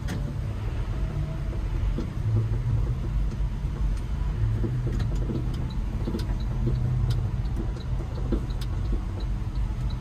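Pickup truck engine running at low revs, heard inside the cab as it creeps forward on the clutch alone without throttle, a steady low rumble. Faint, evenly spaced light ticks sound through the second half.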